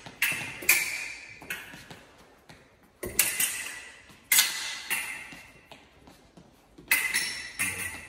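Steel foil blades clashing: sharp metallic clicks with a short ringing clink, in quick pairs, three bursts a few seconds apart.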